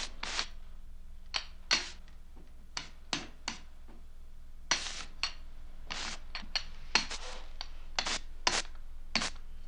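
A hand ink roller worked over a carved soapstone printing block, making short scratchy strokes at irregular intervals, often about two a second, over a faint low hum.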